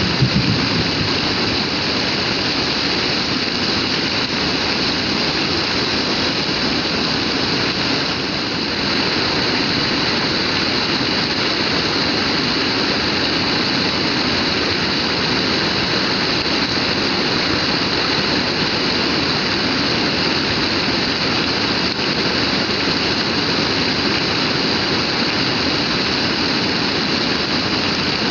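Heavy rain pouring down in a steady, dense hiss, like a waterfall.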